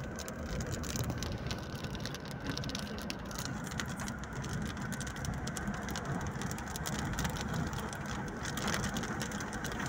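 Steady road and engine rumble of a car driving on a wet road, heard from inside the cabin, with scattered raindrops ticking on the windshield.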